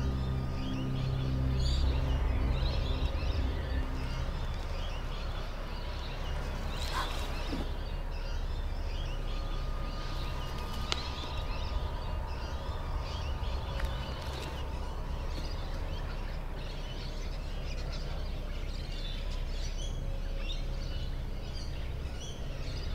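Garden birds chirping and singing, many short calls throughout, over a steady low hum.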